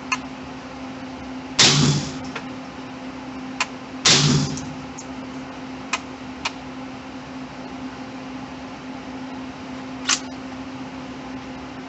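FGC9 MKII, a 3D-printed 9mm carbine, fired twice about two and a half seconds apart, each shot a sharp report with a short ring. Lighter clicks come between the shots, a smaller sharp crack sounds near the end, and a steady low hum runs underneath.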